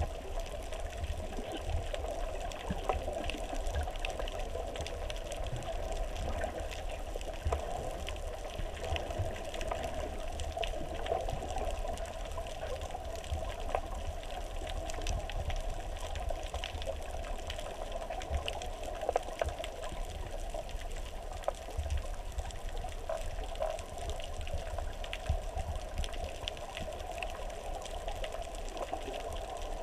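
Underwater sound picked up by a GoPro Hero3+ in its waterproof housing: a steady muffled rush of water with a low rumble and scattered faint clicks and crackles.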